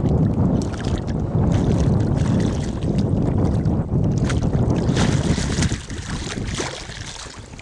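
A hooked wels catfish thrashing at the surface beside the boat, a run of splashes that eases off near the end, over wind rumbling on the microphone.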